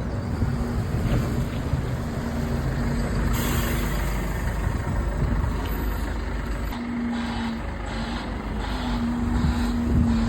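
A bus engine runs close by with a steady low rumble, and there is a short hiss of air brakes about three seconds in.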